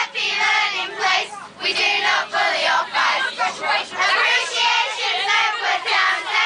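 A group of children singing and shouting together, many voices at once, in short loud phrases with brief gaps between them.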